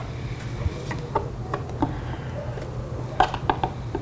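Armature wire being bent and handled by hand: scattered light metallic clicks and ticks, with a quick run of them about three seconds in.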